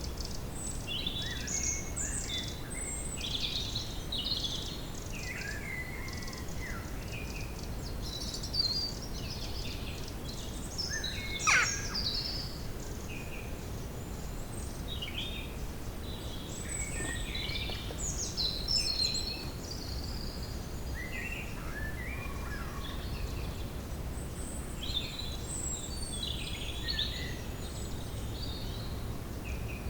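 Woodland ambience: many birds chirping and calling throughout over a steady low background rumble, with one louder, sharp call about eleven seconds in.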